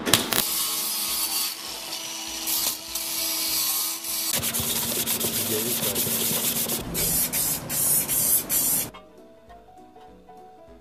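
Arc welding on thin sheet steel: a steady crackling hiss that changes texture about four seconds in and cuts off about nine seconds in. Faint background music is left after it.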